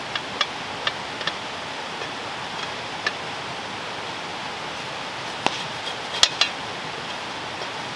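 Spatula clinking and scraping against a frying pan as cooked breakfast hash is scooped out. A few sharp clinks come in the first second or so and another at about three seconds. A louder cluster follows a little past the middle, over a steady rushing background noise.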